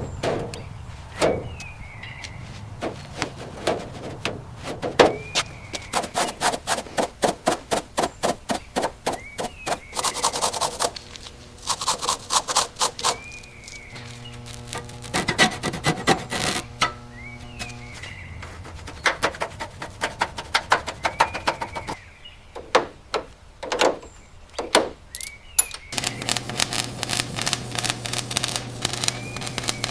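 Runs of rapid, rhythmic scraping strokes and sharp knocks from hand work on rusted metal. A steady hum comes in about halfway through and again near the end.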